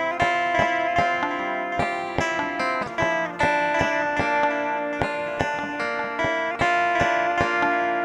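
Instrumental background music on a plucked guitar, a run of picked notes that ring on.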